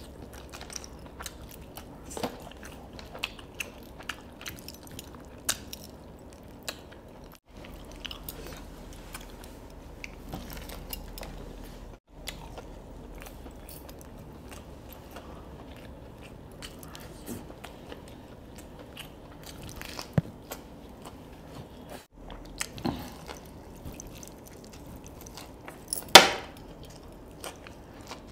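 Close-up chewing and biting of crispy fried chicken, with many small crunches and wet mouth sounds. A much louder single crunch comes near the end.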